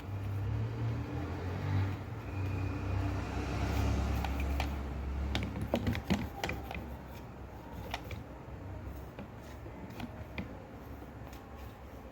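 Electric fan motor humming steadily, then dying away about halfway through, with a run of sharp clicks and knocks of plastic parts being handled.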